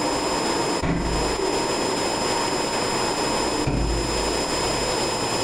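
Steady loud rushing noise with faint high steady whine tones, broken by two short low rumbles, one about a second in and one near four seconds in.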